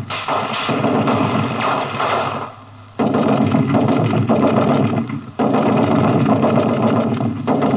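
Machine gun firing long bursts of about two seconds each, with short pauses between them, as a dense rattle.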